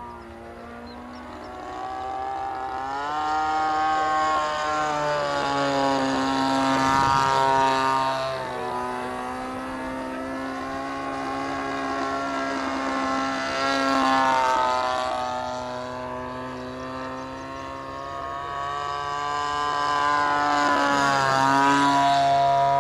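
The small two-stroke petrol engine (CRRC Pro GF26i) of a quarter-scale Yak 54 RC aerobatic plane, running in flight. Its pitch and loudness rise and fall several times as the plane manoeuvres and passes overhead.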